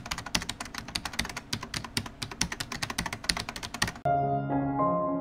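Rapid computer keyboard typing, many quick clicks, stopping suddenly about four seconds in as soft piano music begins.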